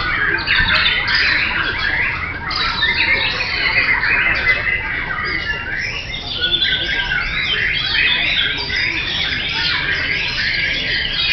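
Many caged white-rumped shamas (murai batu) singing against each other at once. It is a dense, unbroken chorus of overlapping fast whistles and chattering phrases.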